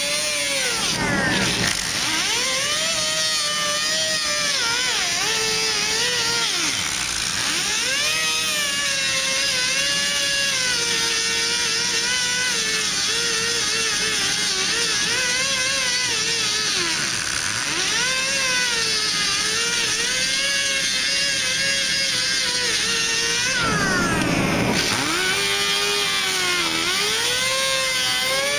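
A 4.5-inch angle grinder with a 24-grit disc grinding rusted truck body steel down to clean metal for welding: a continuous whine over a gritty hiss. The pitch sags and recovers as the disc is pressed into the metal and eased off, dropping most deeply about a second in and again near the end.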